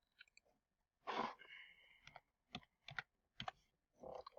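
Computer keyboard keys tapped a few times, faint scattered clicks.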